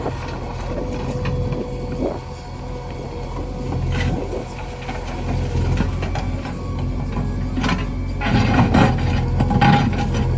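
Backhoe loader's diesel engine running steadily, with a sharp metal knock about four seconds in and a busier stretch of clanking near the end.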